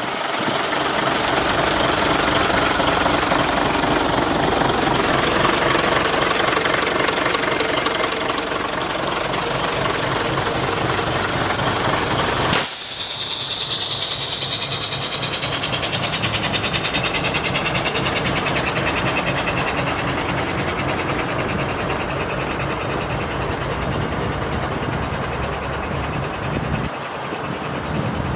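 Diesel engine of a Mercedes Axor truck-mounted concrete pump running steadily. About halfway through there is a sharp click, after which the sound is thinner with a hiss.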